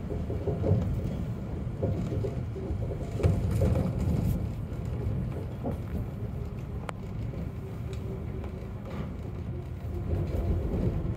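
Chiba Urban Monorail Type 0 suspended monorail running along its overhead track, heard from the driver's cab: a steady low rumble from its rubber-tyred bogies in the track beam, with a few faint clicks and knocks.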